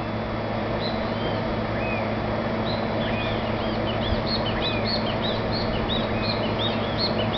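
Small birds chirping: many short, arching chirps, sparse at first and coming thick and fast from about three seconds in, over a steady low hum.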